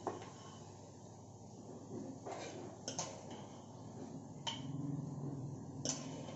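Metal spoon clinking and scraping against a pressure cooker and a steel kadhai as cooked beans are spooned out of the cooker: about five sharp clinks spread over several seconds.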